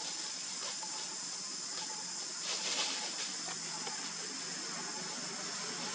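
Insects, crickets or cicadas, chirring steadily at a high pitch, with a few faint clicks and rustles about two and a half seconds in.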